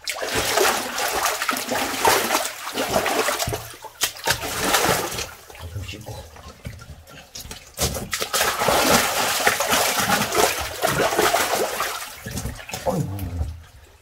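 Water splashing and sloshing in a spring-fed rock pool inside a small cave, coming in uneven surges with short lulls.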